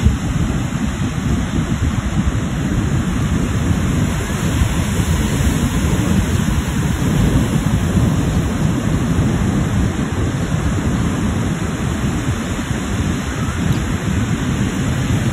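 Wind buffeting the microphone, a loud, steady low rumble over the wash of breaking surf.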